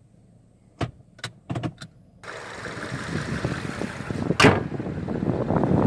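A few faint clicks in a quiet car cabin. About two seconds in, the sound switches abruptly to wind buffeting the microphone outdoors, with one sharp knock about halfway through.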